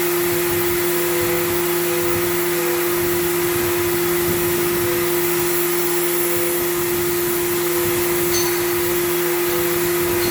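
Power sander running steadily while dry-sanding a car's rear bumper: an even hum with a hiss that holds at one pitch and level throughout.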